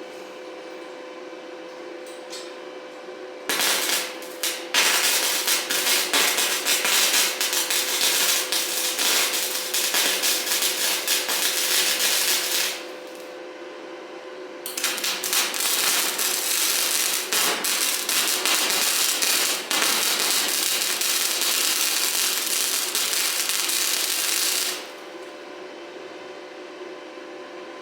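Angle grinder with an abrasive wheel grinding into the steel tubing of a trampoline frame. There are two long passes of about nine and ten seconds with a short break between them, and the motor keeps running at a steady whine throughout.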